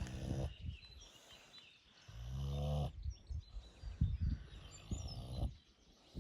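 Vietnamese pot-bellied pig snoring in its sleep. A long, low snore comes about two seconds in, between rough, snuffling breaths.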